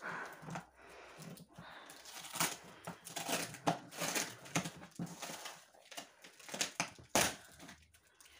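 Wrapping material and a cardboard box being handled while it is unpacked by hand: irregular crinkling and rustling, with a sharp crackle about seven seconds in.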